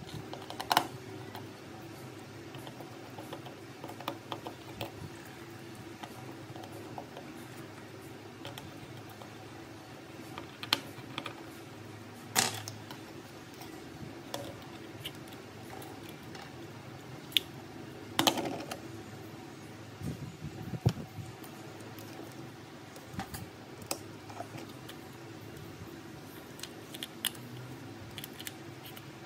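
Scattered small clicks and taps of hand tools and small parts being handled during repair work on an iPhone 7 Plus, a few louder clicks among them, over a steady low hum.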